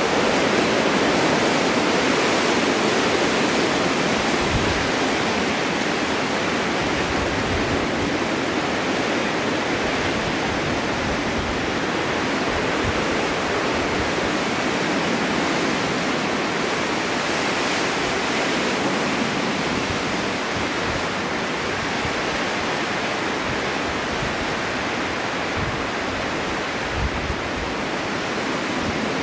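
Snowstorm wind blowing steadily, a dense rushing hiss that swells and eases a little, with occasional low rumbling gusts.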